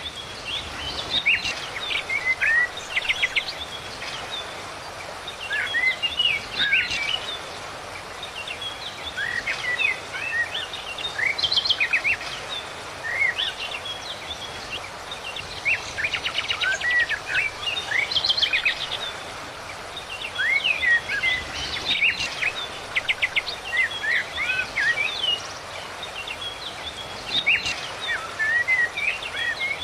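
Small songbirds singing: bursts of quick, high chirps and fast trills every few seconds over a steady background hiss.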